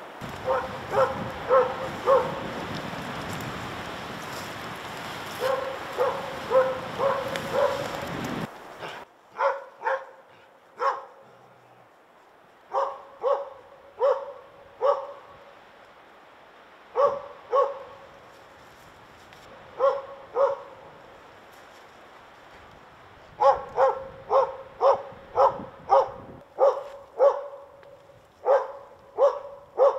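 A hunting dog barking in short, repeated barks at a moose it is holding at bay, the usual baying of a loose moose dog. The barks come in scattered groups of two or three, then settle into a steady run of about one and a half barks a second near the end. A steady hiss lies under the first third and stops abruptly.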